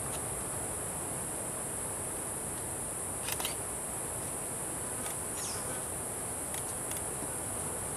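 Tropical rainforest insect chorus: a steady, high-pitched, unbroken drone. A few short chirps and clicks sound over it, one about three seconds in and another about five seconds in.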